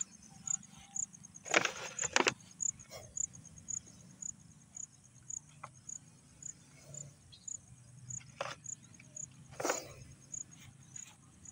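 A cricket chirps steadily, about two high chirps a second. A few sharp crinkling knocks come from a plastic bottle handled in the grass, the loudest about two seconds in and again near the end.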